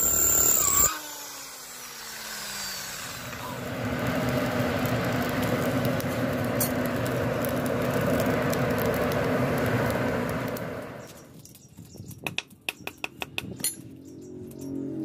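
A power tool whines and cuts off about a second in, its motor winding down. A steady rushing hum of forced air through a burning charcoal forge follows, and near the end it gives way to a run of sharp clicks and ticks.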